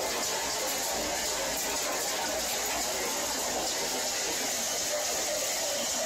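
A small scrap-processing line running: the 24 by 16 hammer mill, conveyor belts and cross-belt magnet make a steady, even machinery noise with no distinct impacts standing out.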